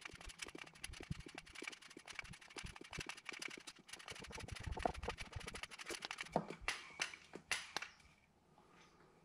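Hand grease gun being pumped into the grease fitting of a new mower deck spindle: a dense run of short clicks and clacks from the gun's lever and plunger as grease is forced into the spindle housing, stopping about eight seconds in.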